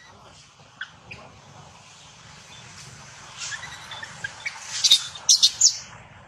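Baby macaque squealing in distress as its mother pins it down and treads on it. Short high cries build to a run of loud shrieks about five seconds in.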